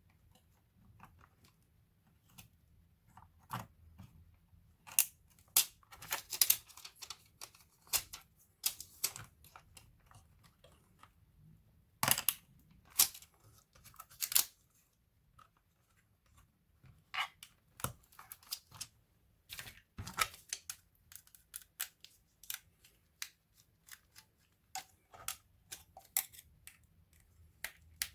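Irregular sharp plastic clicks and small knocks from hands working on an Acer 5733 laptop's case and parts, in uneven clusters with short pauses between.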